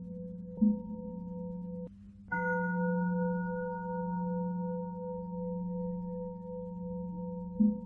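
A low bell ringing with a long steady hum, struck again several times: once about half a second in, once about two seconds in after a brief drop-out, and once near the end. The strike about two seconds in brings brighter overtones that fade over the next few seconds.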